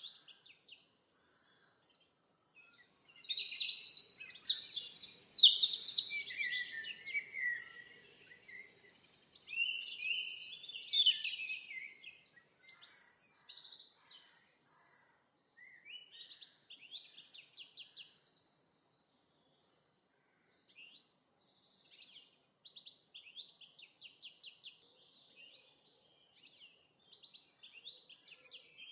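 Songbirds singing and chirping in a recorded outdoor ambience: overlapping high chirps and quick trills, loudest in the first half, then fainter and sparser.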